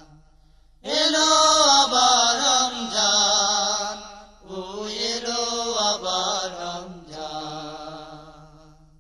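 A solo voice singing a Bengali naat with no instruments, drawing out long wavering notes in three phrases. The last phrase fades away near the end.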